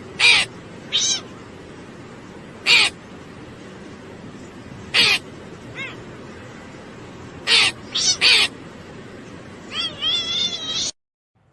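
A small animal's short, high-pitched calls, about seven over several seconds, then a longer wavering call near the end.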